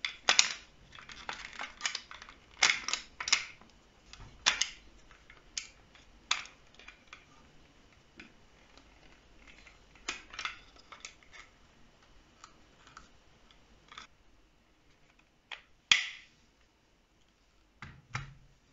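Metal and plastic parts of an airsoft pistol and a 3D-printed stock being handled and fitted together: scattered clicks, taps and light scrapes, busiest in the first several seconds, with one sharper click and a couple of dull knocks near the end.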